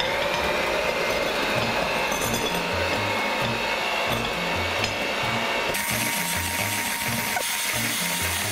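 Electric hand mixer running steadily with its beaters in a glass bowl, shredding cooked chicken meat. The motor gives a steady high whine.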